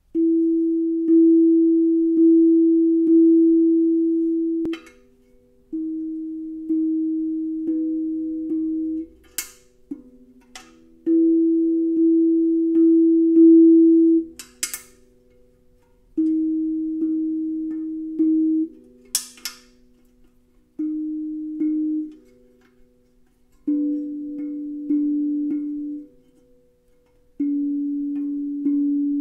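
Steel tongue drum with one tongue struck by a felt mallet, ringing notes about once a second in short runs with a pause between runs. Each run sits at a slightly different pitch, lower near the end, as a tuning magnet placed on the underside of the tongue retunes that one note. Brief sharp clicks fall in some of the pauses.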